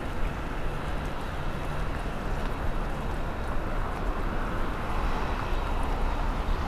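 Steady outdoor city noise: a low, even rumble of traffic.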